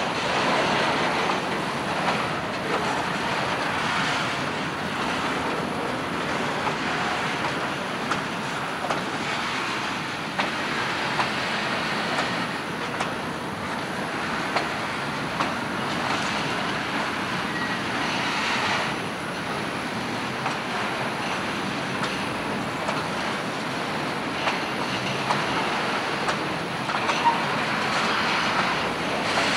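Piggyback (trailer-on-flatcar) freight train rolling past: a steady rumble of steel wheels on rail, with scattered clicks from the wheels.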